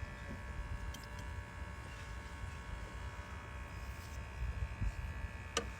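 A steady buzzing hum of fixed tones over a low rumble, like a small motor running, with one sharp click near the end.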